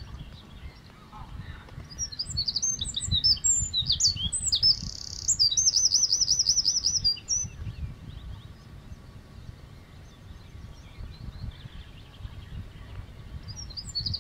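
Eurasian wren singing: a loud, fast burst of high notes, a short buzz and a rapid trill, lasting about five seconds, with another song starting near the end. A low rumble runs underneath.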